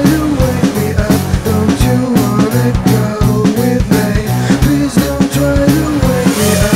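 Rock music with a fast, steady drum beat, bass and guitar.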